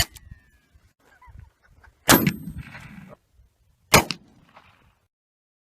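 Three gunshots about two seconds apart, the first followed by a thin ringing tone that falls in pitch, the second with a long rumbling echo.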